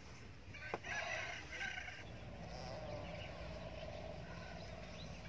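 Chickens clucking and calling: a run of short calls starting about a second in, then a longer drawn-out call. A single sharp click comes just before the calls begin.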